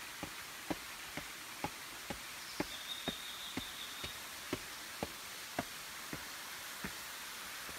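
Footsteps at a walking pace, about two a second, slowing and stopping near the end, over a steady rush of falling water from a waterfall.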